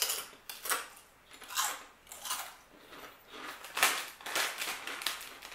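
Hard kettle-cooked onion potato chips being chewed: a run of irregular crisp crunches.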